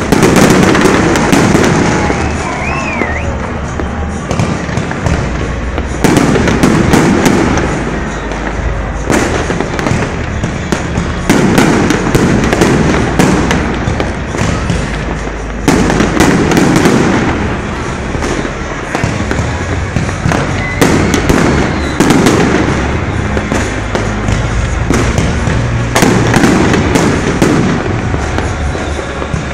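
Aerial fireworks going off: a loud burst every few seconds, each followed by dense crackling from the exploding stars.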